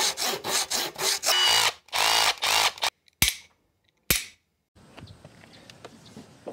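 A power drill revving in a rapid series of short bursts for about three seconds, its pitch swooping up and down, followed by two sharp hits about a second apart.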